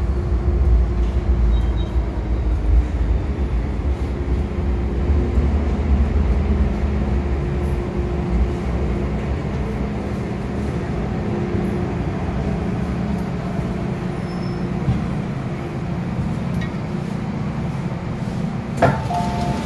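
MTR M-Train electric multiple unit slowing to a stop alongside a platform: its low rumble and steady motor hum fade out about halfway through, leaving quieter running noise. Near the end there is a sharp clunk, then a two-note tone, as of the door chime.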